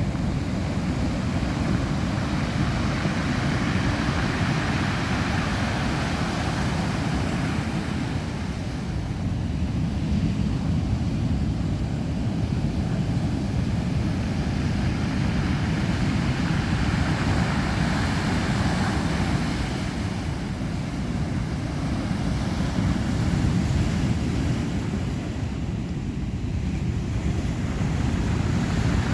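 Heavy Atlantic surf in stormy weather, a continuous rushing wash of breaking waves that swells and eases every several seconds, with wind buffeting the microphone as a deep rumble underneath.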